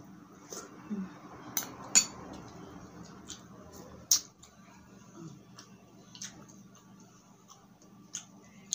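Metal spoon and fork clinking and scraping against a plate as food is eaten, with about six sharp clinks, the loudest about four seconds in, and soft chewing between them.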